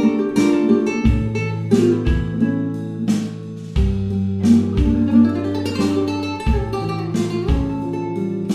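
Background music led by plucked guitar, with sustained bass notes.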